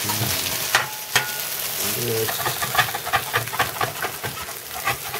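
Eggplant patties sizzling in oil in a stainless steel frying pan. A metal spatula scrapes and knocks against the pan as it is pushed under the patties to flip them, and the patties are sticking a little to the steel.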